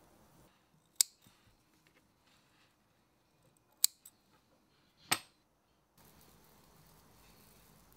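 Small spring-loaded snips cutting baby pups off a plant's soft stems: three crisp snips, about a second in, near four seconds and just after five seconds. A faint steady hiss follows about six seconds in.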